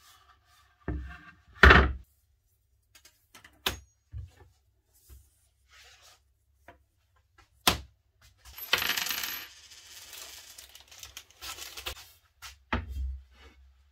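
Objects being set down and handled on a wooden workbench. A pine board and a steel ruler land with sharp knocks and clinks, the loudest about two seconds in. Then comes a few seconds of rubbing and scraping as a bicycle rim is handled, and a thump near the end.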